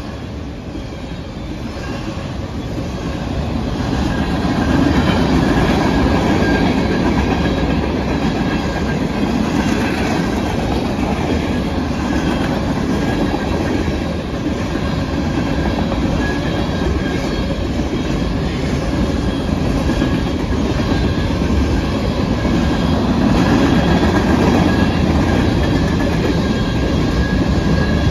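Railroad cars rolling past, their wheels clattering over the rails with a faint steel-wheel squeal. The sound builds over the first few seconds and then holds steady.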